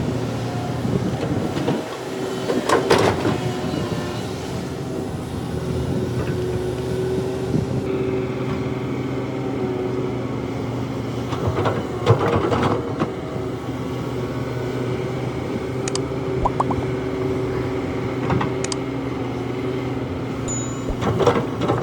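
Large diesel excavator engine running steadily, with bouts of metal clanks and knocks three times: near the start, about halfway and near the end.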